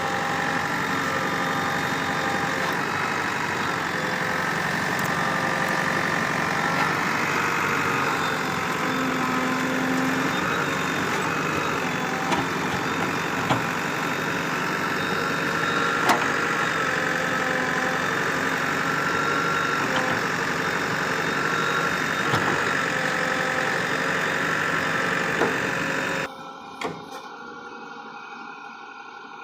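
Diesel engine of heavy machinery (backhoe loader or tractor) running steadily, with a few sharp knocks. Near the end the engine sound cuts off abruptly to something much quieter.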